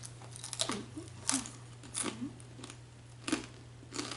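A person chewing a mouthful of whole edible bugs, their shells giving several sharp crunches at an uneven pace, roughly one every half second to second.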